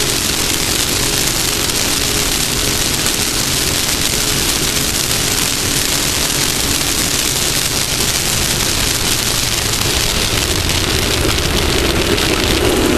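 Steady rush of wind and road noise on the front camera of a Class 1600 off-road race buggy at speed, with the engine's drone faint underneath. The engine tone grows louder near the end.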